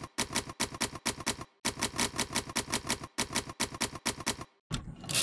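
Manual typewriter keys striking in quick runs, about six or seven keystrokes a second with brief pauses between words. Near the end the keystrokes stop and give way to a short rasping slide as the carriage is returned for a new line.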